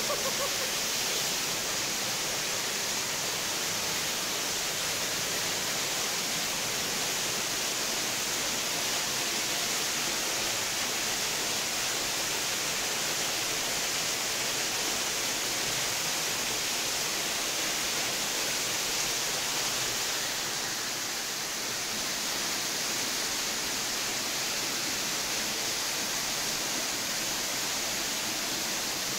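Steady rush of flowing water, dipping slightly about twenty seconds in.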